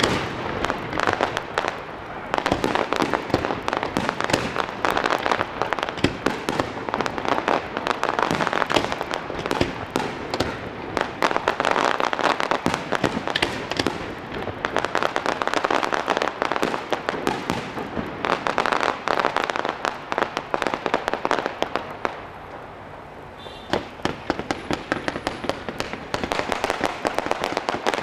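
Aerial firework shells bursting over a display, with a dense, near-continuous crackle of many sharp pops. There is a short lull about three-quarters of the way through, then the crackling picks up again.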